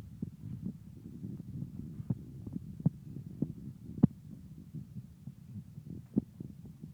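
Toyostove KRA-105 kerosene heater burning at full flame: a low, uneven rumble with scattered faint clicks.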